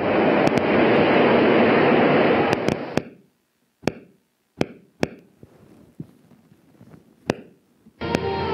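Spikes of a single human medial temporal lobe neuron played through a loudspeaker as sharp, irregular clicks. For the first three seconds they sound over a loud, noisy film soundtrack; then only sparse clicks remain, until a film soundtrack with steady tones cuts in near the end.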